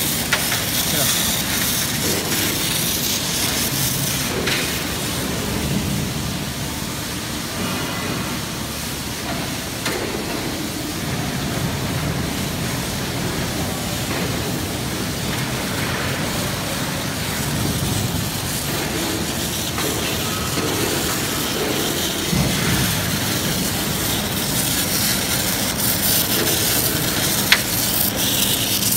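Steady factory-floor noise of automatic overlay welding machines running: a hissing, crackling haze from the welding arcs cladding chromium carbide wear plate, with a single sharp knock near the end.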